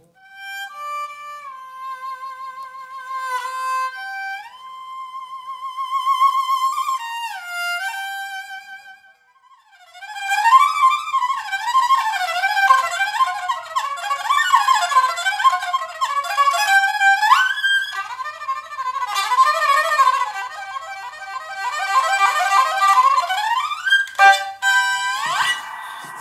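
A two-string erhu bowed solo: a slow melody of long notes with vibrato and sliding pitch bends, a brief break about nine seconds in, then a fast passage of rapid notes and slides, ending in upward glides.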